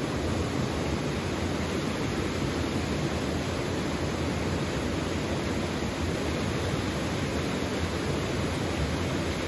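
Steady rush of a small waterfall spilling over a rock ledge into a pool.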